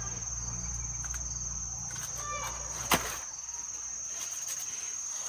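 Insects trilling steadily at one high pitch, with a single sharp knock about three seconds in.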